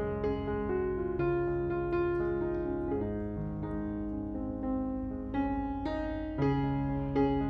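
Background piano music: slow, sustained notes and chords, with a new note struck every second or so.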